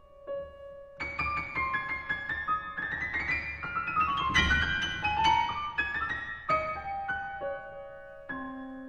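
Solo grand piano in a contemporary classical piece: a quiet held note, then about a second in a flurry of notes builds to a loud peak near the middle, thins out, and settles on a low note left ringing near the end.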